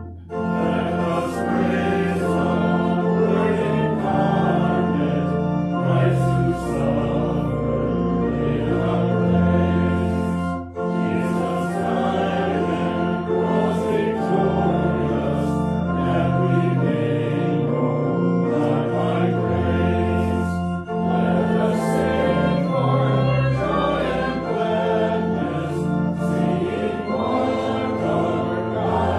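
A church congregation singing a hymn together to pipe organ accompaniment, with steady held bass notes under the voices. There are brief pauses between phrases about ten and twenty seconds in.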